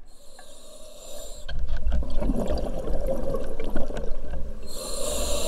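Scuba diver breathing through a regulator underwater: a sharp hiss of an inhalation at the start, then about three seconds of rumbling exhaled bubbles, and another inhalation hiss near the end.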